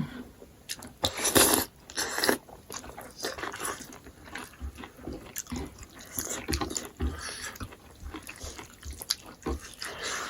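Close-up eating sounds of people biting and chewing smoked pork: a run of short wet clicks and smacks, louder for a moment about a second in.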